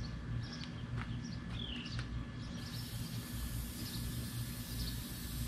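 Outdoor background with small birds chirping over a steady low hum, and a couple of faint clicks about one and two seconds in.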